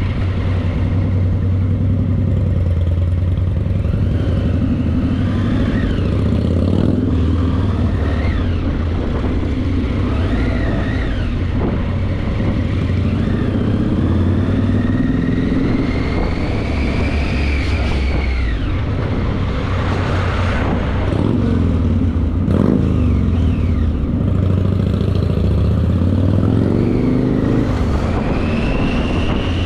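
Triumph Tiger motorcycle's three-cylinder engine running steadily under the rider, its pitch rising and falling several times as the throttle opens and closes while filtering through slow traffic.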